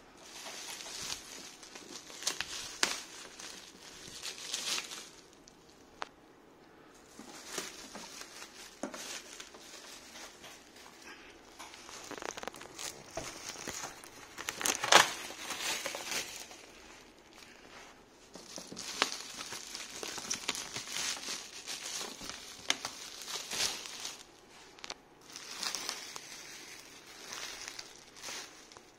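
Clear plastic stretch wrap crinkling and crackling as it is pulled and peeled off by hand, in irregular bursts with short pauses; the loudest crackle comes about halfway through.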